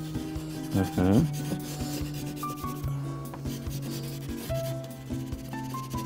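Wax crayon rubbing on paper in quick back-and-forth colouring strokes, over soft background music with held notes. A short vocal sound comes about a second in.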